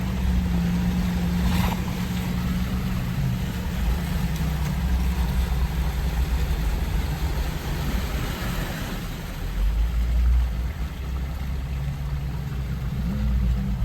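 Jeep Wrangler JK engine running steadily at low trail speed, with a short knock about one and a half seconds in and a brief rise in engine load about ten seconds in.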